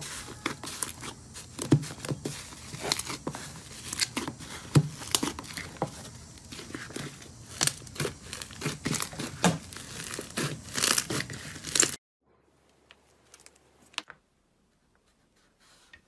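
A hand squishing and pressing rainbow slime, at first a foamy, bubble-filled batch in a plastic tub, makes a dense crackling with many sharp clicks and pops. It cuts off suddenly about twelve seconds in. Near silence follows, with a few faint clicks as fingertips touch orange slime in a tub.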